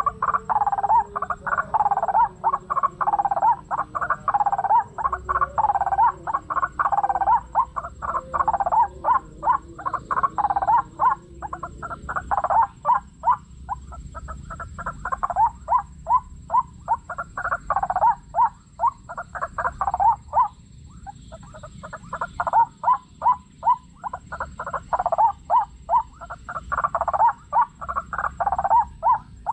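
White-breasted waterhen (ruak-ruak) calls repeated over and over, several a second, with a short break about twenty seconds in.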